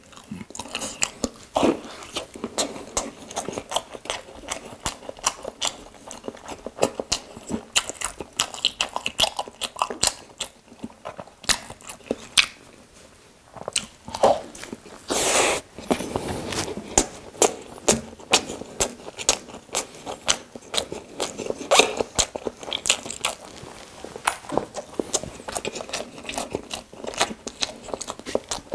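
Close-miked chewing and biting of a toasted Korean street-toast sandwich: a steady run of small crunching and wet mouth clicks, with one louder bite about halfway through.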